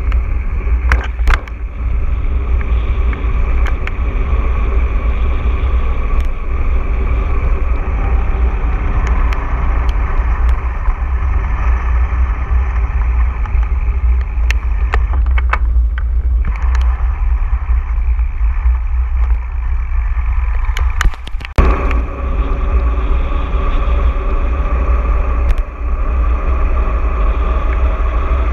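Mountain bike riding a trail, heard from an action camera mounted on the ride: a steady heavy wind rumble on the microphone and the rattle and tyre noise of the bike, with scattered sharp knocks from bumps.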